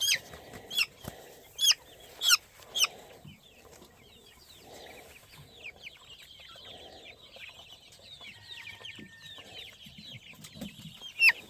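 Chickens calling: a run of about five loud, high squawks falling in pitch, roughly two a second, over the first three seconds, then softer clucking and quick faint peeping from the flock. The loud calls are typical of a bird being held and handled.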